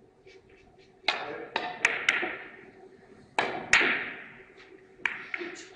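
Three-cushion carom billiards shot: the cue tip strikes the cue ball about a second in, then a run of about eight sharp clicks and knocks as the balls hit each other and rebound off the cushions over the next four seconds.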